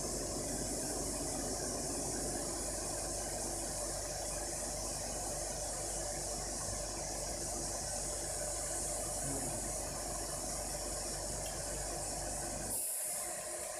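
Fiber laser marking machine running as it engraves a metal saw blade: a steady hum with a constant hiss. About a second before the end, the low hum drops away suddenly and a short burst of high hiss follows.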